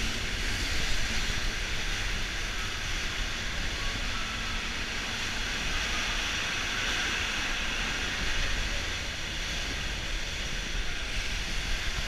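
Steady rush of churning water in the channel of a river rafting ride, heard from aboard the moving raft, with a low rumble underneath.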